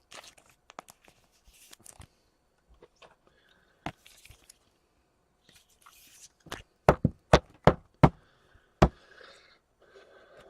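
Trading cards being handled on a tabletop: soft rustling and sliding of card stock with scattered small taps. In the second half comes a run of about six sharp clicks.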